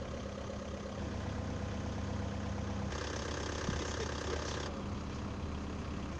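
Heavy truck engine idling, a steady low hum, with a rush of hissy noise for under two seconds about three seconds in.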